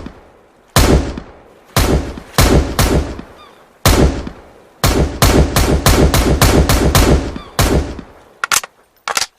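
Rifle gunshots with echoing tails. First comes a handful of single shots about a second apart, then a rapid string of about ten shots at roughly four a second. Two shorter, sharper cracks follow near the end.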